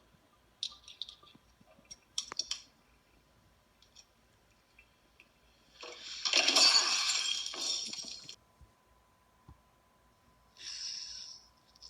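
Glass beer bottles clinking and clicking as they are capped by hand, with a loud crash-like burst about six seconds in that lasts some two seconds, and a short hiss near the end.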